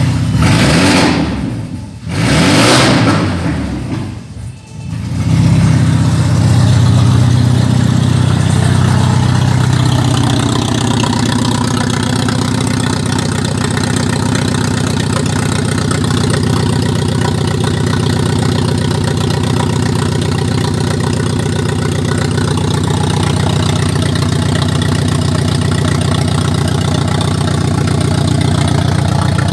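Audi A4 B6 2.0 ALT inline-four petrol engine running. It swells and dips a few times in the first five seconds, then settles into a steady idle.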